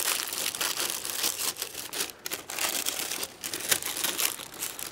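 Greaseproof paper crinkling in irregular crackles as hands press and fold it into a cast-iron Dutch oven to form a liner.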